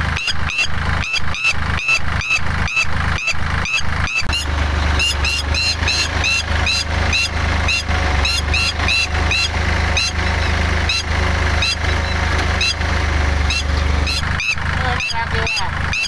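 Red-wattled lapwing screeching a rapid string of short, sharp alarm calls, about two to three a second, in defence of its nest and egg. Under the calls a farm tractor's engine runs with a low steady hum, louder from about four seconds in until near the end.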